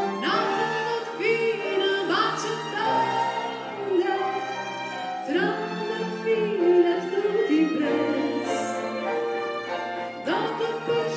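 A woman sings with vibrato into a microphone, accompanied by a piano and a string quartet of two violins, viola and cello. Her sung phrases come and go over sustained string notes, and she pauses for a couple of seconds near the end while the instruments hold on.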